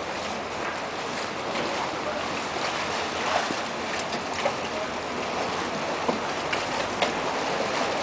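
Water rushing and splashing past the side of a moving boat, a steady wash with a few sharp clicks in it.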